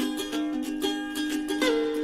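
Background music with a plucked string instrument playing a melody over held notes.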